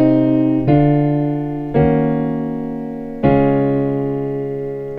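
Piano chords played slowly on a keyboard as a gospel 6-to-2 movement in D flat. Three chords are struck about a second or so apart, each left to ring and fade, over a chord still sounding at the start.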